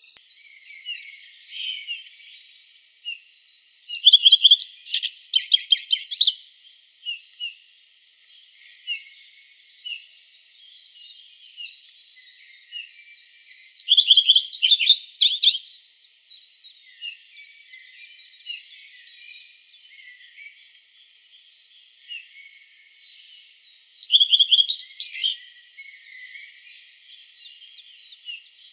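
Woodland birdsong: one songbird close by sings a short, loud, rapid phrase three times, about ten seconds apart, over the quieter, continuous songs and calls of other birds.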